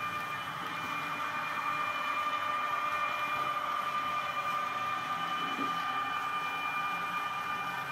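Model train running on the layout: a steady high whine made of several held tones over a rolling hiss.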